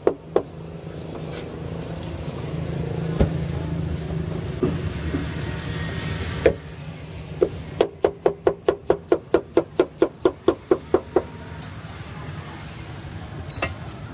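Steel cleaver striking a thick round wooden chopping block: a few single knocks over a steady low hum, then a quick even run of about twenty chops, about five a second.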